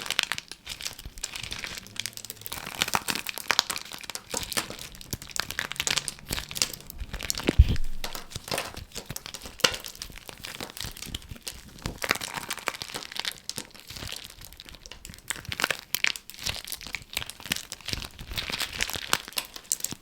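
Continuous close-up crinkling and crackling, as of a layered squishy being squeezed and handled, with a louder thud about seven and a half seconds in.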